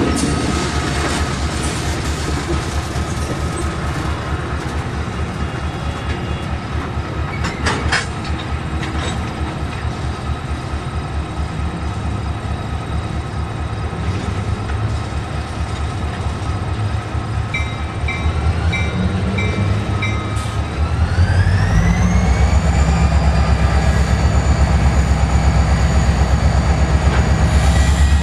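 EMD 645 diesel prime mover running in a locomotive, its low rumble steady until about 21 s in, when it gets louder as the engine is throttled up and a whine rises in pitch and then holds. Four short high beeps sound just before the throttle-up.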